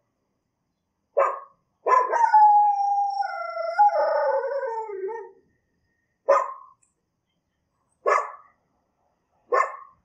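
A dog barks once, then gives one long howl that slides down in pitch for about three and a half seconds. Three single barks follow, spaced a second or two apart.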